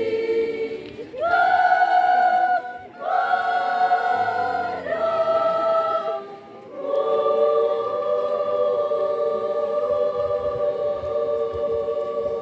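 A women's church choir singing an Indonesian hymn in harmony, in a few short phrases that end on one long held final chord.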